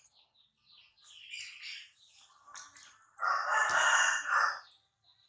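Animal calls: a few high chirping squeaks, then one loud, harsh call about a second and a half long, starting about three seconds in.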